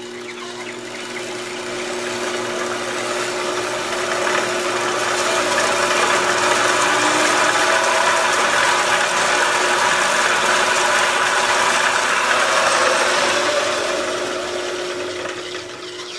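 A 4x6 metal-cutting band saw driven by a treadmill motor runs with a steady hum while its blade saws through a metal block. The cutting noise builds over the first few seconds and eases off near the end.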